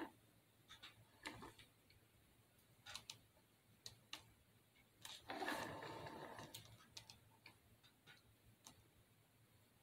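Near silence with faint, scattered small clicks and taps from hands handling and pressing fake-dessert craft pieces into place, and a slightly louder stretch of handling noise lasting about a second, about five seconds in.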